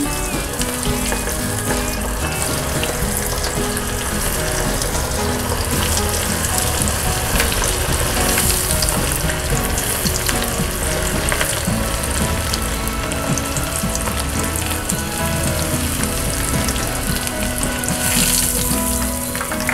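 Breadcrumb-coated chicken strips frying in hot oil in a skillet: a steady crackling sizzle that swells as more pieces are lowered into the oil near the end.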